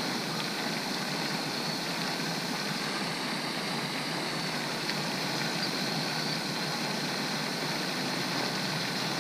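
Steady splashing rush of a pond's aerator fountain spraying, an even hiss with no breaks.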